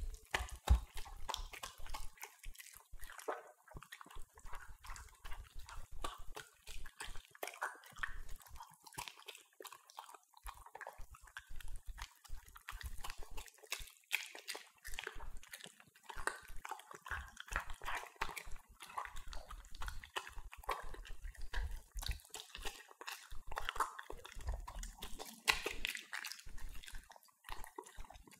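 Two Italian greyhounds eating raw minced beef from stainless steel bowls: wet, irregular chewing, lapping and smacking with many sharp clicks and a few low knocks. Near the end they are licking the emptied bowls clean.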